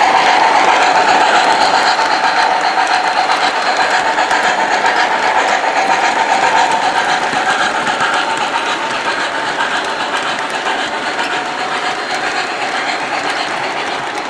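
MTH Premier O-scale Pennsylvania Railroad G-5s 4-6-0 model steam locomotive running, its onboard sound system playing rapid steam chuffing over the rattle of its wheels and motor on the track. The sound fades slowly as the train moves away.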